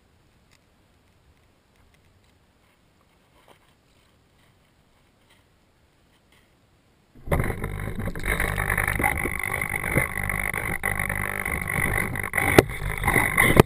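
Near silence, then about seven seconds in a loud, steady rushing noise cuts in suddenly: wind buffeting an action camera's microphone while the camera is handheld in the open.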